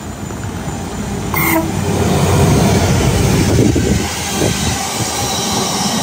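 Diesel-hauled freight train running through the station at speed, its locomotive and box wagons rumbling and clattering past and growing louder over the first couple of seconds. A brief horn toot sounds about a second and a half in.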